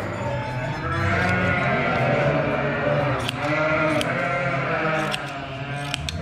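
Several sheep bleating over one another without pause, with a few short sharp clicks in between.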